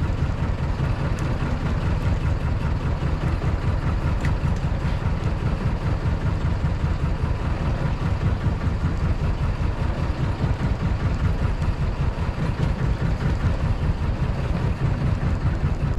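Fishing boat's engine running steadily, a deep even rumble.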